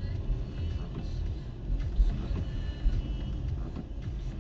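Low, steady rumble of a car driving slowly on a wet road in rain, heard from inside the cabin through a dashcam microphone, with scattered light taps; the loudest taps come about two seconds in and just before three seconds.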